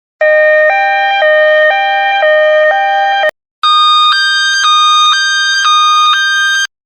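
Two-tone hi-lo ambulance siren, switching between two pitches with each held about half a second, for about three seconds. It stops with a click, and after a short gap the same hi-lo pattern returns about an octave higher.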